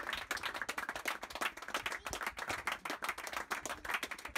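A small group of spectators applauding, many hand claps overlapping steadily.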